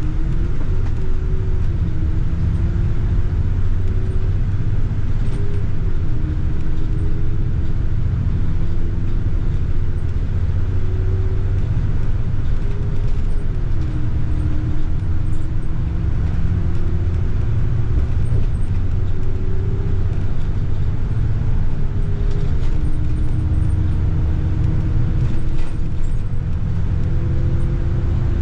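Double-decker bus driving, heard from the upper deck: a steady low rumble of engine and road, with a whine that climbs slowly and drops back suddenly several times.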